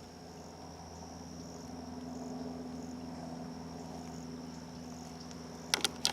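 Steady high-pitched chorus of crickets or other insects in a swamp, over a low steady hum. A few sharp clicks come near the end.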